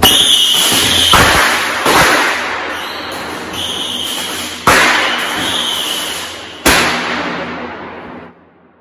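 Fireworks going off inside a corrugated pipe tunnel. A loud bang comes right at the start, then further sharp bangs about 1, 2, 4.5 and 6.5 seconds in, with a continuous hiss between them. It echoes down the tunnel and dies away near the end.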